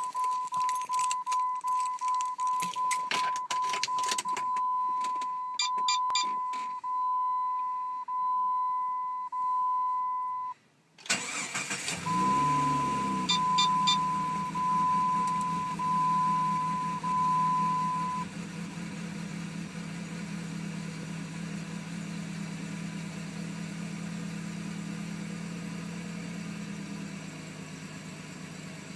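A 2001 Jeep Grand Cherokee's 4.0 straight-six cold-starting. For about the first ten seconds the dashboard chime beeps over and over among clicks. About eleven seconds in, the engine cranks and catches, flares up, then settles to idle while the chime keeps beeping for several more seconds. The owner calls the idle rough and stuttering on cold starts since his evaporative-emissions repair, and suspects the fuel pump is struggling with a pressurized tank.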